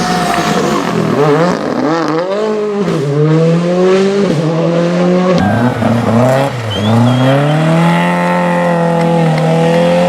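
Rally car engine revving hard, its pitch repeatedly climbing and dropping, with a sudden drop about halfway through, then rising and held at high revs near the end.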